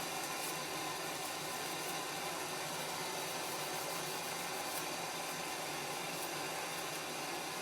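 Small gas blowtorch burning with a steady hiss, heating a copper pipe end while it is tinned with solder.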